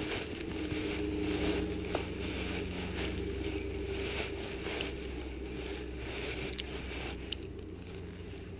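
Steady low rumble with a faint hum under it, plus light rustling and a few soft clicks while fishing line is pulled in hand over hand from an ice hole.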